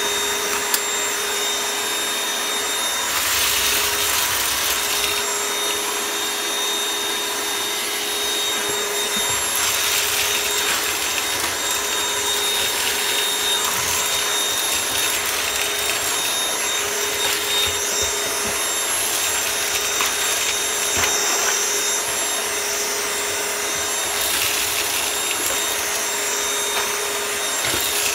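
Cordless vacuum cleaner running with a steady whine, picking up crunchy debris that crackles in the head and tube. The rushing air noise swells three times: about three seconds in, about ten seconds in and near the end.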